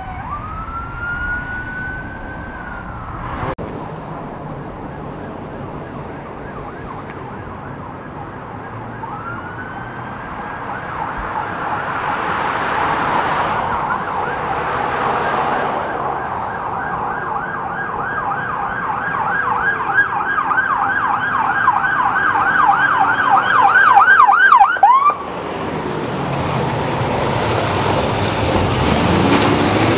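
Police electronic sirens: a slow wail sweeping up and down, then a rapid yelp that grows steadily louder as the vehicles close in and cuts off suddenly about 25 seconds in. Afterwards a heavy vehicle's engine and tyres pass close by, the engine note rising near the end.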